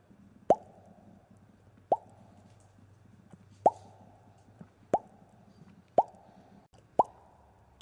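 Bubbles popping one at a time: six short plops, each sliding quickly up in pitch, spaced about a second apart.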